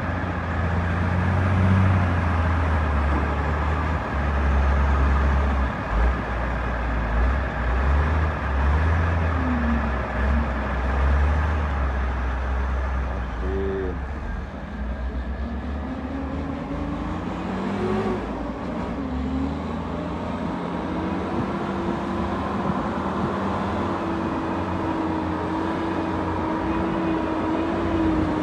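Heavy diesel engines running with a deep rumble: a wheel loader working beside a dump truck. After about halfway, a dump truck's diesel engine comes in, its pitch rising and then holding steady as the truck approaches on a dirt road.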